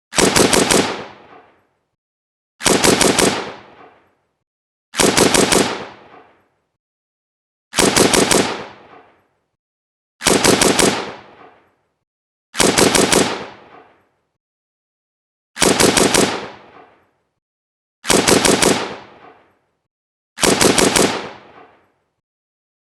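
AK-47 rifle firing short automatic bursts: nine bursts of about four or five rapid shots each, roughly two and a half seconds apart, each trailing off in a short echo before silence.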